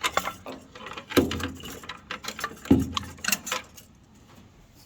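Hand tools and metal carburettor parts clinking and clunking, with two louder metallic knocks a second and a half apart, during removal of the throttle and choke linkage.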